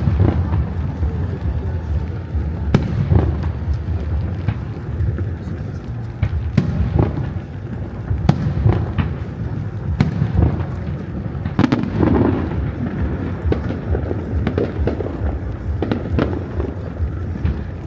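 Aerial fireworks bursting: sharp bangs every second or so over a continuous low rumble.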